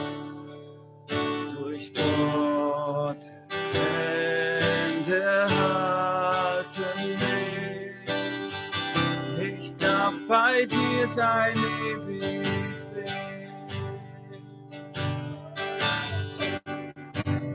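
A man singing a German worship song while strumming an acoustic guitar.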